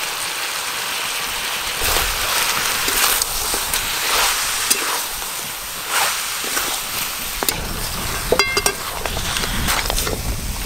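Mutton frying in hot mustard oil in a metal karahi, sizzling steadily while a metal spatula stirs and scrapes the meat and spice pastes through the pan. A few metal clinks of the spatula on the pan about eight seconds in.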